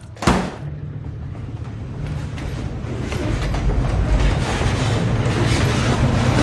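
A single heavy sledgehammer blow about a third of a second in, then a diesel locomotive's low engine rumble and rolling wheels, growing steadily louder as it approaches.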